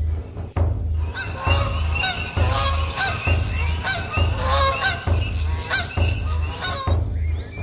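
A flock of geese honking, many overlapping calls starting about a second in and stopping near the end, over a steady low drum beat.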